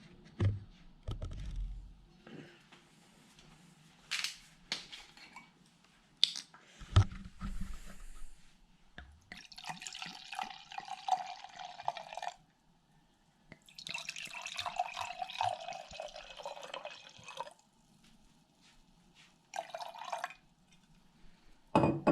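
White wine being poured from a bottle into a glass: a few clicks and knocks, then two pours of about three and four seconds with a gurgle in them, and a short top-up near the end.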